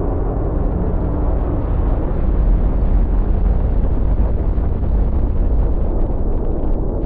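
Twin jet engines of an F-15EX Eagle II fighter at high thrust on its takeoff roll: a loud, steady deep rumble.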